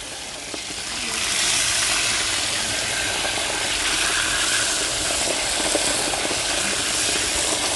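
Small pieces of meat frying in hot oil in a kazan, a steady sizzle that swells about a second in and then holds. Meat was just added to the hot fat and pressed against the kazan's wall to sear.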